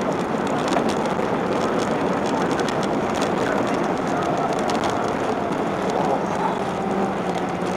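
Steady cabin noise of a Boeing 737-800 on final approach: engine hum and rushing airflow, even and unbroken.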